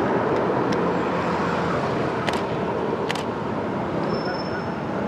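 Steady road-traffic noise, with a few short sharp clicks and a brief thin high whistle near the end.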